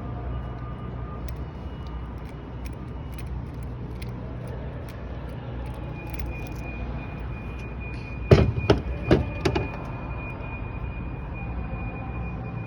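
Small metal clicks and taps from a Master padlock's parts being handled as it is taken apart, with three or four louder sharp knocks about eight to nine and a half seconds in, over a steady low rumble.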